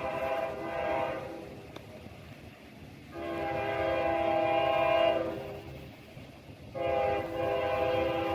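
Freight locomotive air horn sounding a steady chord of several tones in blasts: one ending about a second in, a long one from about three seconds in, and another starting near the end, over the low rumble of the train.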